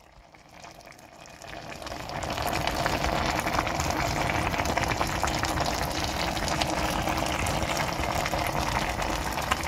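A pan of young hairtail braising with sweet potato stems and green onion in red pepper sauce, simmering and sizzling with a dense crackle of bubbles. The sound swells over the first two or three seconds, then holds steady.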